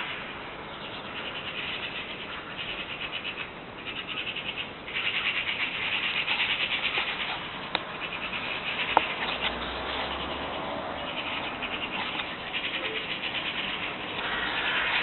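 Small songbirds chirping and trilling in quick bursts, with a faint low hum of distant traffic for a couple of seconds in the middle.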